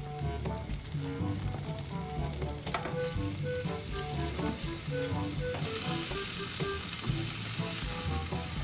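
Barbecue-sauced pork ribs sizzling on a grill grate over the flames while being basted with a brush. The sizzle grows louder about halfway through, with background music throughout.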